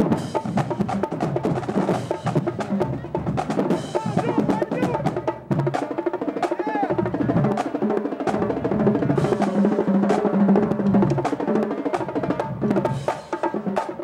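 A marching drumline playing a fast cadence together: snare drums, tenor drums and bass drums in dense, rapid strokes.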